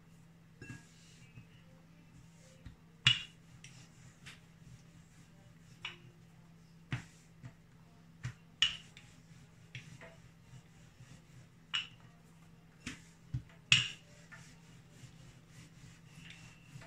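Wooden rolling pin rolling out a thin sheet of dough on a floured countertop: soft rubbing broken by a sharp knock every second or two, the loudest about three seconds in and again near the end.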